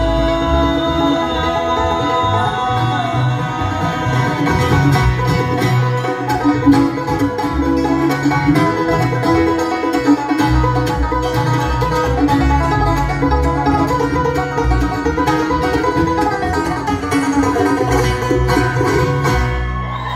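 Live bluegrass band playing, with banjo, mandolin, acoustic guitar and upright bass picking together.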